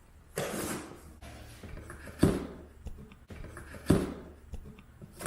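A box and its packaging being handled and opened: a brief scraping rustle under a second in, then two sharp thumps about two and four seconds in, with a few small knocks between.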